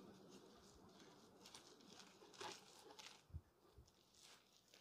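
Faint, irregular scrapes and clicks of a spatula stirring cornbread batter in a glass mixing bowl.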